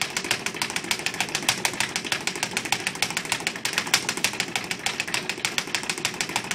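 Leather speed bag being punched continuously, rattling against its wooden rebound platform in a fast, even drumming of many strikes a second.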